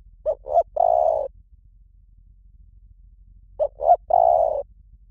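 Spotted dove cooing: two calls, each of two short coos followed by a longer one, the first near the start and the second about three and a half seconds in.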